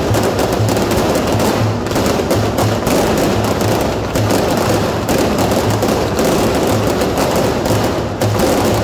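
Aerial fireworks crackling and popping in a dense, unbroken barrage of rapid reports, with music carrying a steady low beat underneath.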